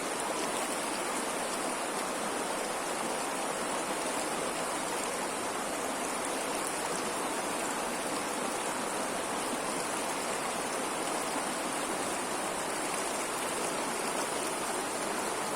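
Steady rushing of running water, unbroken and even throughout.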